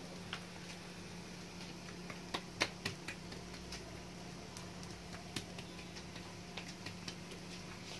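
Faint kitchen noise: a steady low hum with scattered light ticks and clicks, the sharpest a few clicks between about two and three seconds in, while oiled msemmen dough cooks on a cast-iron griddle that is not yet fully hot and the next sheet is pressed out by hand on the counter.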